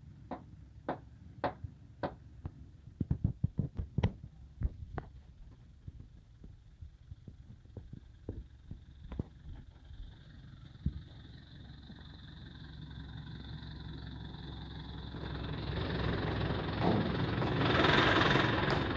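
A series of sharp metallic knocks, followed by a mobile crane's diesel engine running and growing steadily louder toward the end as it hoists a tractor.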